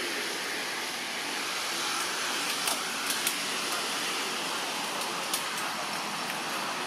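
Steady, even hiss of outdoor background noise, with a few short sharp clicks in the middle.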